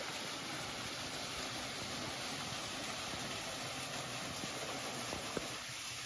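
Steady rush of water from a small forest waterfall and stream: an even, unbroken hiss.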